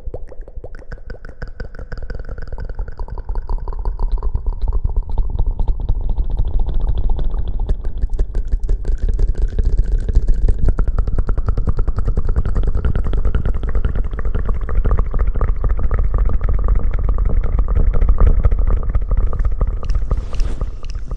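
Close-miked ASMR hair-washing sounds: wet scrubbing and rubbing right on the microphone, a dense rapid crackle over a low rumble that builds over the first few seconds and then keeps on.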